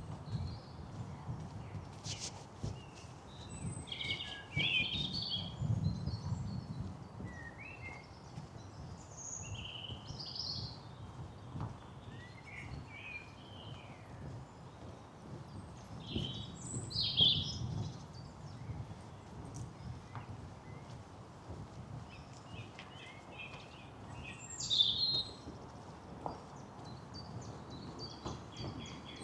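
Several songbirds singing and calling in woodland, in short scattered phrases with louder bursts around 5, 17 and 25 seconds in, over a steady low rumble.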